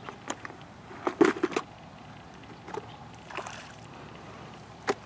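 Hooked fish splashing and thrashing at the water's surface close to the bank as it is reeled in. The loudest burst of splashes comes about a second in, with smaller splashes later.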